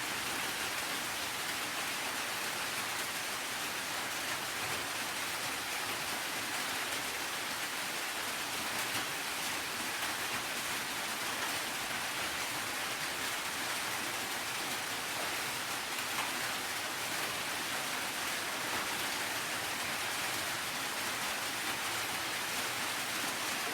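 Steady rain falling, an even hiss with no thunder or other events.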